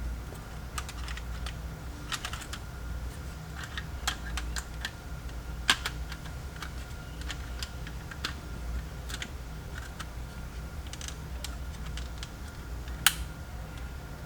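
Irregular light clicks and taps of a T20 Torx driver and plastic interior trim being handled as screws are driven in to fasten a trim piece, with a sharper click about six seconds in and another near the end, over a low steady hum.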